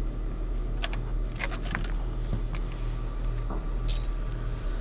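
Scattered light metallic clicks and taps of tools and parts being handled, over a steady low hum.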